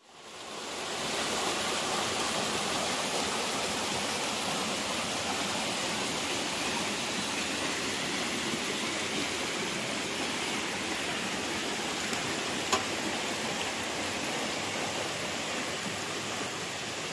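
Steady rushing water, fading in over the first second or so and then holding even. About two-thirds of the way through there is one short sharp click.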